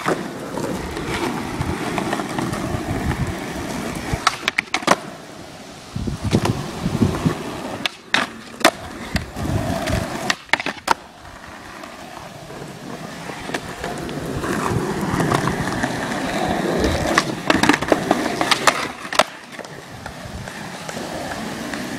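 Skateboard wheels rolling over rough concrete, rising and falling as the rider pushes. Several sharp clacks of the board popping and landing break in, with a grind along a bench ledge around the middle.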